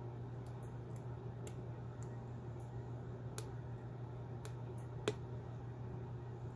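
Irregular faint metallic clicks of a lock pick working the pins inside a solid brass Ace padlock, about ten in all, with one sharper click about five seconds in. A steady low electrical hum runs underneath.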